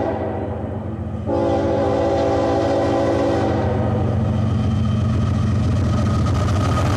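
Multi-chime air horn of an approaching freight train's lead locomotive, a GE ES44AC: one blast trailing off about a second in, then a louder long blast until about three and a half seconds in. Under it the steady low rumble of the diesel locomotives grows as they come closer.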